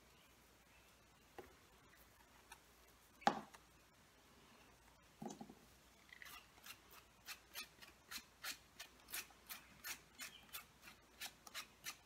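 Small knife scraping the pale pore surface on the underside of a pheasant back (dryad's saddle) mushroom in short strokes, about three a second, from about halfway in. Before that, a few scattered taps, the loudest about three seconds in.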